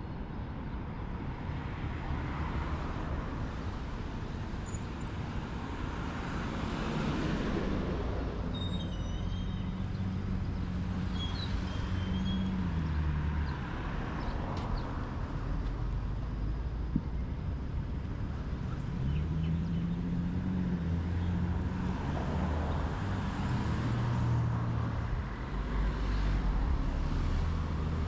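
Road traffic: cars and heavier vehicles passing, their engines rising and falling in pitch, with tyre noise swelling as each one goes by.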